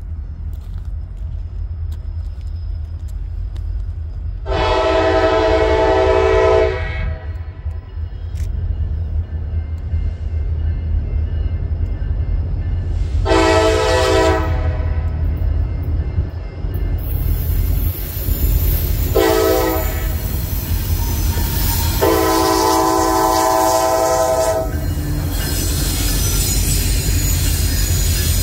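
Norfolk Southern freight train's diesel locomotives approaching and passing, their air horn blowing four blasts (long, long, short, long), the grade-crossing signal. A steady low engine rumble runs under the horn, and over the second half it grows into loud wheel and rail noise as the locomotives go by.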